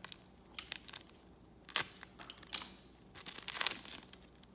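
Trading-card packaging being handled: sharp crinkles and tearing of wrapper, with a denser run of crinkling about three seconds in.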